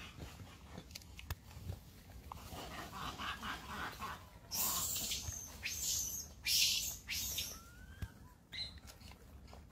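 Macaques calling: a quick run of short pitched calls, then several loud, harsh screeching bursts, and a short rising call near the end.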